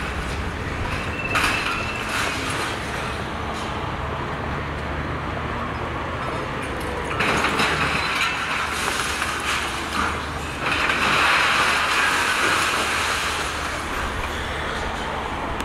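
Caterpillar demolition excavator running, with its demolition jaw working on a steel roof truss. Grinding and scraping of metal swells louder about seven seconds in and again about eleven seconds in, over the steady drone of the diesel engine.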